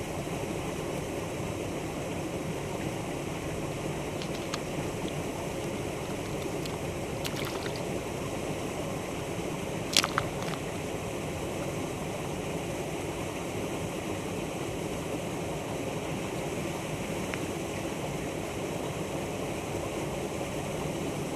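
Steady rushing outdoor background noise with a few light clicks, and one sharp click about halfway through.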